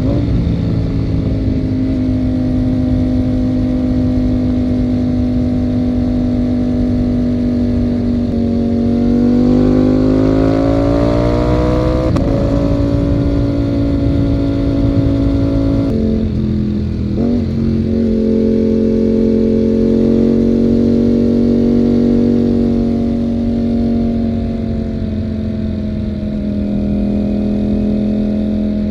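Ducati Panigale V4 motorcycle engine running under way, heard from the rider's seat. The pitch rises as it accelerates about a third of the way in and falls back, then drops sharply with a brief warble around the middle before it settles to a steady note.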